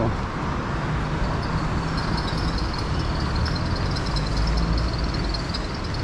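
City street traffic: vehicle engines running close by, with a low rumble that swells about four seconds in as something passes. A thin high-pitched whine sits over the din from about two seconds in.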